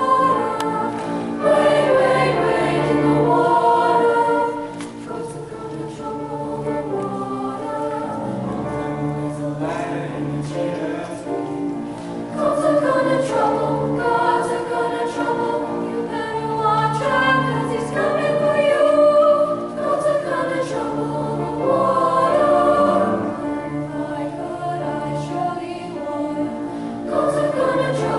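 School choir singing in parts over sustained low notes, in phrases that swell and fall back.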